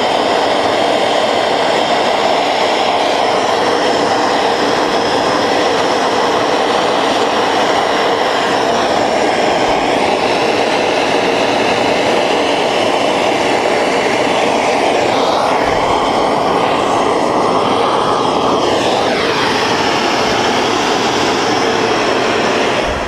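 Hand-held gas torch burning steadily and loudly while it heats a copper boiler for silver soldering. Near the end the tone of the flame drops lower, and the sound then cuts off suddenly as the torch is shut off.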